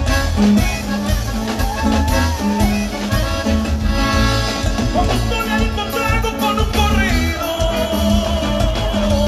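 Norteño band playing live through a large PA system, an accordion-led instrumental passage over guitar, bass and a steady beat, with no singing.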